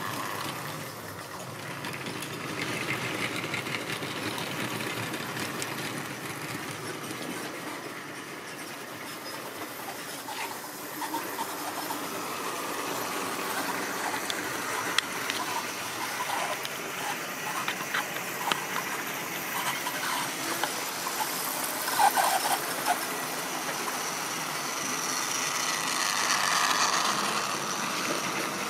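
Tri-ang model trains running on the layout: the steady whir of small electric locomotive motors with wheels clicking over rail joints and points. A train of wagons passes close near the end, growing louder.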